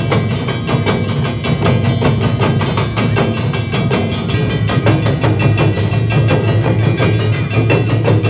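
Awa Odori festival music: taiko drums and clanging kane hand gongs playing a fast, steady beat.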